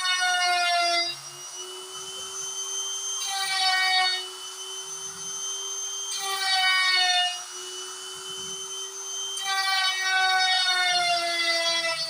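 DIY CNC router carving wood: a steady spindle tone, with stepper motors whining in short pitched passes about a second long that slide slightly down in pitch as the axes move, the longest starting near the end.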